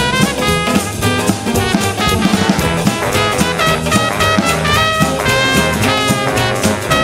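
Upbeat swing-style instrumental music with brass and a drum kit keeping a steady beat, no singing.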